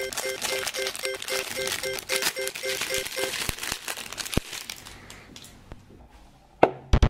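Clear plastic bag crinkling as hands handle and open a packaged toy figure, dying away about five seconds in. A couple of loud sudden sounds come just before the end.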